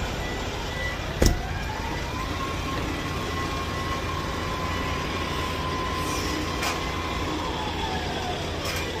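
A high whine winds up about two seconds in, holds steady for about five seconds, and winds back down near the end. Under it runs a low, steady machinery rumble, and there is one sharp knock a little over a second in.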